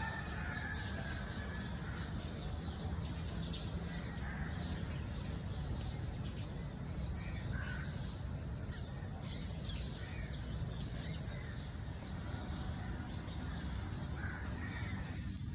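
Crows cawing now and then, with small birds chirping throughout, over a steady low rumble.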